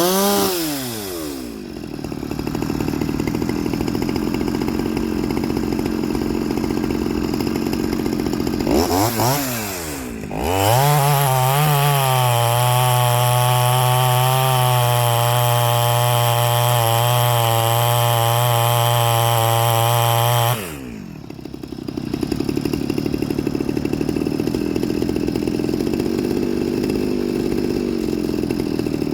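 Stihl 023 C two-stroke chainsaw idling with two quick blips of the throttle. It is then held at high revs for about ten seconds before dropping back to idle.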